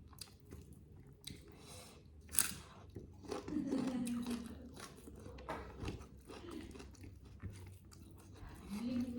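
Close-up mouth sounds of someone eating chicken curry with rice: chewing and biting with wet clicks and crunches, a sharp click about two and a half seconds in. A short low hum from the eater comes around the middle and again near the end.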